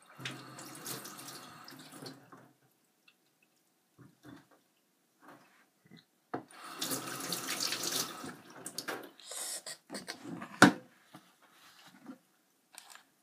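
Kitchen tap water running into a stainless steel sink in two spells of about two and a half seconds each, as a catfish is rinsed under it. Small handling knocks come between the spells, and one sharp knock late on is the loudest sound.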